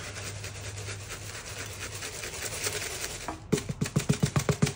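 Dried chopped onion rattling out of a plastic shaker jar, a steady rasp, then the jar shaken hard in a quick run of knocks, about eight a second, near the end.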